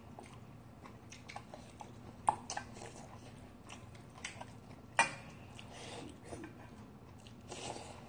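Two people eating soybean-sprout rice soup: chewing, with short clicks of metal spoons and chopsticks against stainless steel bowls, the two sharpest about two seconds in and about five seconds in.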